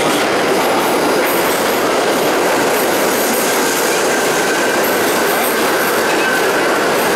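R68 subway train entering an underground station and running past along the platform, loud and steady throughout, with a faint high squeal midway.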